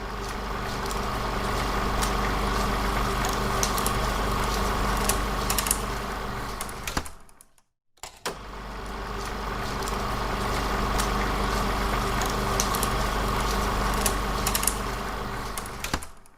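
A steady mechanical hum with a deep low rumble and a held mid-pitched tone, broken by scattered sharp clicks. The same eight-second stretch plays twice, each time fading in and fading out.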